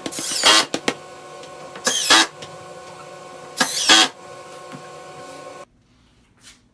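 Power drill/driver running in three short bursts, its motor whine gliding up and down as screws are driven, over a steady hum; the sound cuts off abruptly near the end.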